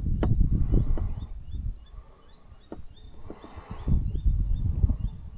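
Wind gusting over the microphone in low rumbling buffets, strongest at the start and again about four seconds in, while a bird or insect keeps up a steady run of short high chirps, two or three a second.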